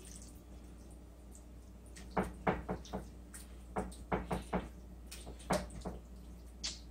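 Raw chicken quarters pressed and rolled by hand in marinade in a ceramic baking dish: irregular wet squishes and small knocks, starting about two seconds in.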